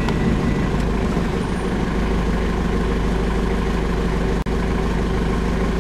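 Safari vehicle's engine running steadily, with the sound cutting out for an instant about four and a half seconds in.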